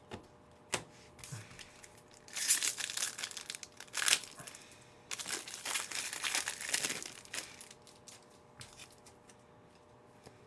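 Foil wrapper of a trading card pack crinkling as it is torn open and handled, in a few bursts with short pauses between them.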